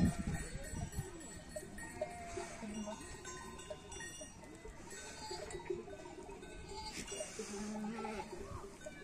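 Small bells on a flock of sheep tinkling irregularly, with a sheep bleating now and then.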